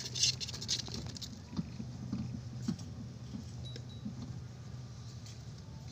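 Rustling and scattered small ticks of a hamster scrambling and pawing in a hand held close to the microphone, with a denser burst of rustling near the start, over a steady low hum.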